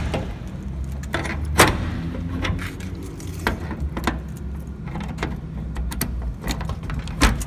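Padlock being fitted onto the hasp of a metal roll-up garage door: a string of metallic clicks and rattles, with sharper clacks about a second and a half in and near the end.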